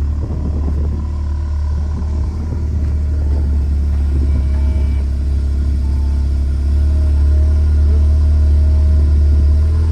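Audi S3 engine and exhaust running under load while driving, a steady deep drone that grows louder, with a step up about two-thirds of the way through.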